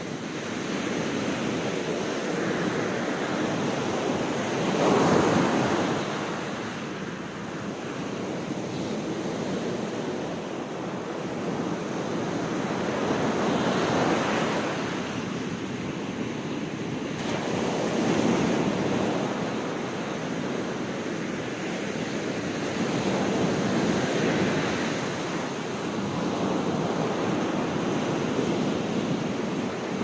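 Sea surf breaking and washing up a sandy beach, the rush of the waves swelling and easing every few seconds, loudest about five seconds in.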